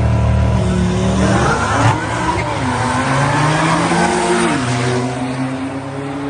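High-powered sports car accelerating hard from a drag-strip launch, its engine note climbing and dropping at gear changes, with tyre squeal.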